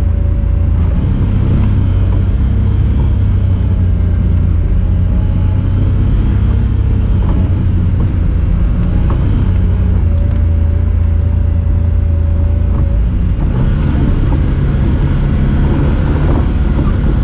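Honda Talon 1000R side-by-side's parallel-twin engine running under way, a loud, steady low drone. The engine note grows fuller and brighter about three-quarters of the way through.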